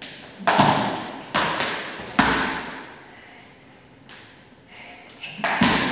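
A child jumping rope on a wooden floor as a beginner: a skipping rope slaps the floor and her feet land in separate thuds, three about a second apart, then a pause, then two quick ones near the end, each ringing briefly in the room.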